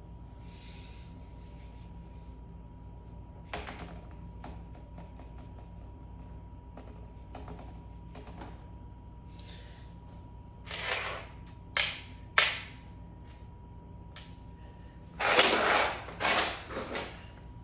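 Scattered clicks and knocks with a few short scraping noises, most of them in the second half, from tools and parts being handled during mini bike fork work, over a steady low hum.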